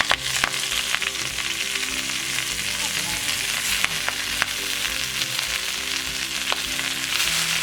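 Thuthuvalai (Solanum trilobatum) leaves sizzling as they fry in hot gingerly oil in a pan, a steady hiss with a few sharp clicks as they are stirred.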